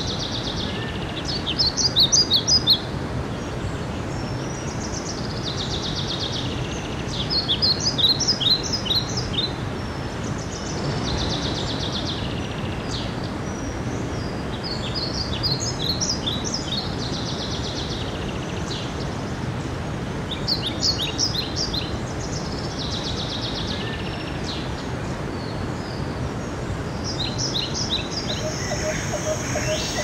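Mountain stream running steadily over rocks, with a songbird repeating the same short song about every six to seven seconds: a fast trill followed by a string of quick notes.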